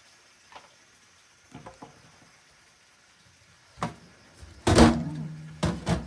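A few faint clicks, then a sliding door or cupboard run along its track: a loud low rumble with a falling pitch, followed by several sharp knocks near the end.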